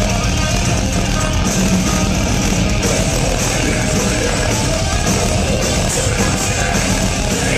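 Metalcore band playing live at full volume: heavy distorted electric guitars over drums, dense and unbroken, picked up by a small camcorder's built-in microphone in the crowd.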